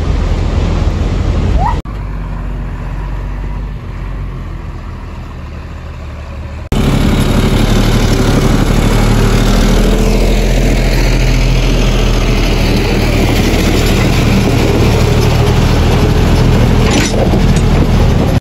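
A vehicle engine running steadily at low revs on a rough dirt road, mixed with road and wind noise. It drops quieter about two seconds in, then jumps much louder about seven seconds in and stays steady.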